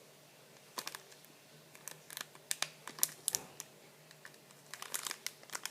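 Plastic packaging of a squishy toy being handled: scattered light crinkles and clicks, coming thicker near the end.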